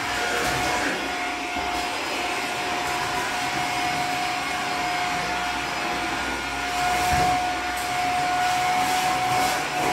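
Vacuum cleaner running steadily on a staircase: a rush of air under a constant high motor whine, swelling a little louder about seven seconds in.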